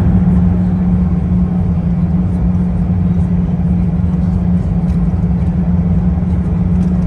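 Steady cabin noise inside an Airbus A380 on final approach with flaps extended: a constant low hum and rumble of the engines and the airflow over the fuselage.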